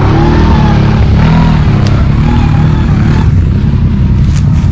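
ATV engines running, the engine note rising and falling for the first three seconds and then settling into a steady low rumble.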